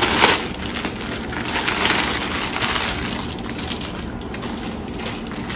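Packaging of a stamped cross stitch kit crinkling as it is handled and opened. The crinkling is loudest in a burst about a quarter second in, then settles into a softer, continuous rustle.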